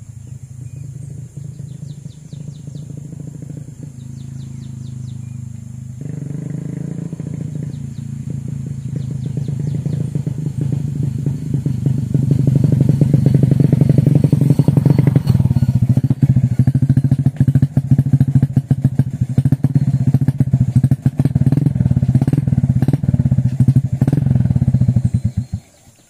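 A motorcycle engine running close by, growing louder over the first dozen seconds, then running loud and steady before it stops abruptly near the end.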